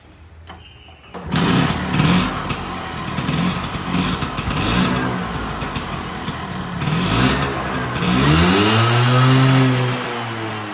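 Vespa 100 (V9B1T) two-stroke single-cylinder scooter engine, running on its freshly rebuilt carburetor. It starts about a second in and is given quick repeated throttle blips, then near the end two longer revs that rise and fall.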